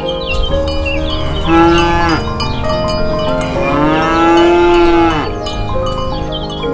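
Two long moo-like animal calls, each rising and then falling in pitch, the second about twice as long as the first, over steady background music with bell-like tones.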